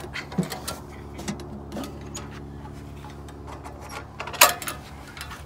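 Metal ammo can being opened: its latch is worked with scattered clicks and scrapes, then one loud clank about four and a half seconds in as the lid comes open.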